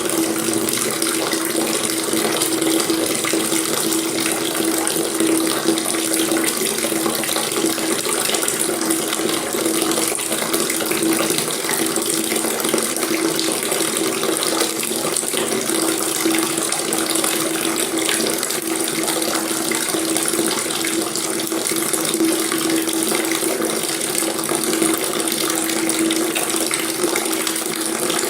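Water tap running steadily, the stream splashing into a basin, with a low hum-like resonance under the splashing.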